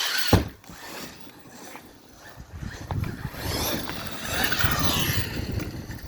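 1/8-scale brushless RC truck on a 6S battery, with an Arrma Kraton 8S motor, driving and accelerating, its motor whine rising in pitch over rough noise from the tyres and drivetrain. A sharp knock comes about a third of a second in, like the truck landing or hitting something.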